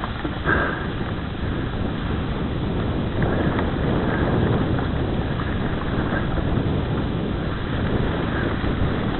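Steady wind buffeting on the microphone with low riding rumble from a mountain bike on a dirt trail, and a few faint knocks.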